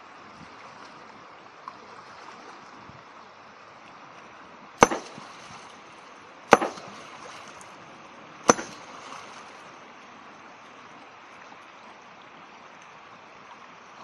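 A hammer strikes a river boulder three times, loud sharp cracks about two seconds apart, each ringing briefly. This is hammer fishing, hitting the rock to stun fish sheltering beneath it. A mountain stream rushes steadily underneath.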